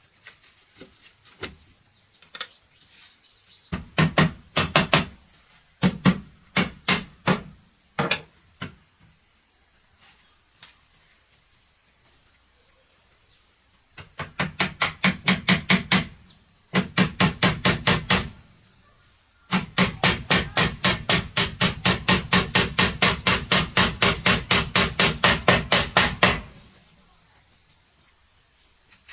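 A hammer striking wood: a few separate blows, then three quick runs of steady hammering at about four blows a second, the last lasting about seven seconds.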